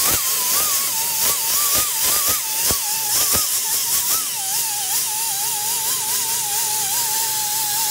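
Vacuum motor whining, its pitch wavering up and down as the hose sucks coolant water and air out of the open engine cylinders. Over it runs a hiss of rushing air, with several sharp slurping clicks in the first three seconds or so.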